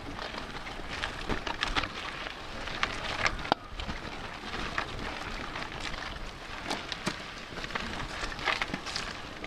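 Mountain bike rolling fast over a dry dirt trail, heard through a handlebar-mounted camera: a steady crunching rattle of tyres and bike parts, with scattered sharp knocks as it hits bumps, one sharper knock about three and a half seconds in.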